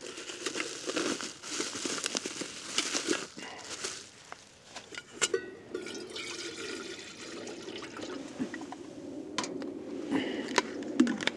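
A fabric stuff sack rustling as a small camping kettle is unpacked, with light metal clinks as the kettle is handled, then water poured from a plastic bottle into the kettle in the later part.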